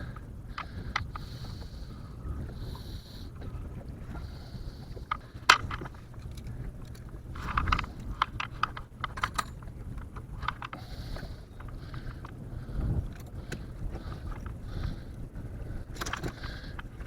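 Handling noise in a small boat while a catfish is being weighed: scattered clicks, knocks and scrapes over a steady low rumble, with one sharp knock about five and a half seconds in.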